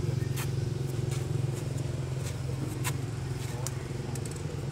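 Steady low hum like a motor running, with a few sharp clicks scattered through it.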